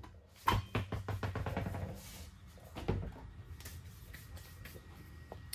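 Rear wheel and tyre of a 2002 Chevy Tahoe being pulled off the hub studs and handled: a quick run of knocks and scraping clicks, then a heavier knock about three seconds in, with lighter ticks after.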